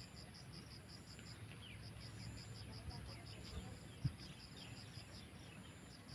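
Faint outdoor ambience: insects chirping in a steady pulse of about five short high notes a second, with birds giving short falling chirps. A single dull thump about four seconds in.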